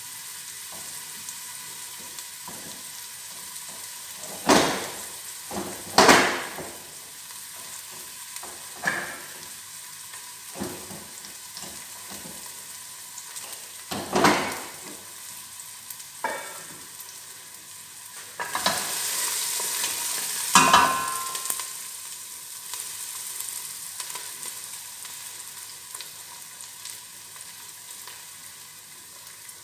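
A metal spoon stirring food in a large stainless steel stockpot, knocking sharply against the pot several times, over a steady sizzling hiss from the pot on the gas burner. The hiss grows louder for a few seconds about two-thirds of the way through.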